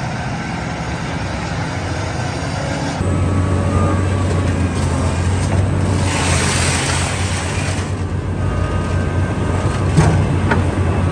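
Diesel engine of a heavy earthmoving machine running steadily, its low hum getting louder after a sudden change about three seconds in. A burst of hiss comes in the middle, and a sharp click near the end.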